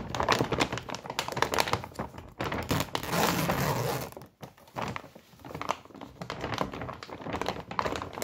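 Large paper sack of dry dog food crinkling and rustling as it is gripped and folded by hand, with dense crackles and a thicker rustle about three to four seconds in.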